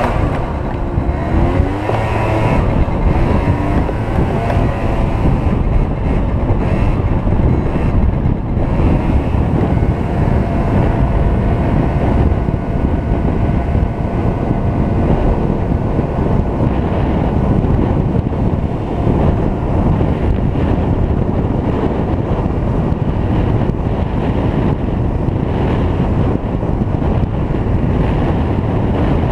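Yamaha BW's scooter riding along, its small engine running steadily under heavy wind noise on the camera microphone.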